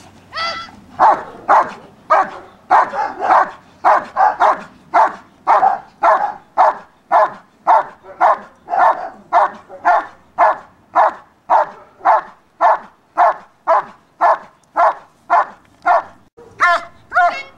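German Shepherd barking steadily at a helper holding a bite sleeve, about two barks a second: the guard, or hold-and-bark, in protection work. Near the end the barks give way to a few higher, wavering yelps.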